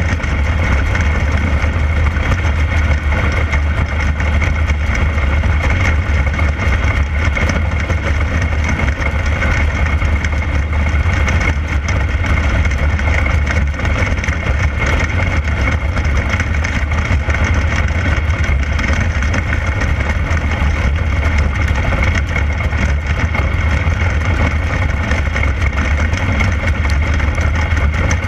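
A 360 sprint car's methanol-burning 360-cubic-inch V8 running steadily as it laps a dirt oval, heard from a camera mounted in its cockpit, with a heavy low rumble and no big changes in pitch.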